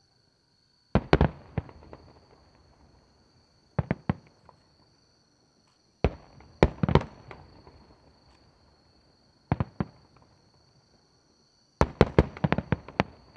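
Large aerial firework shells fired in rapid succession, bursting in five clusters of sharp bangs roughly every two to three seconds. Each cluster holds several reports and fades in a decaying echo. A steady high insect trill carries on underneath.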